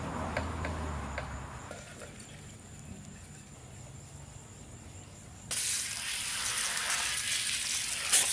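Wet-sanding of a painted motorcycle gas tank by hand with 3000-grit paper, a low rubbing, then about five and a half seconds in a garden hose spray nozzle comes on with a steady hiss, rinsing the tank and splashing water off it.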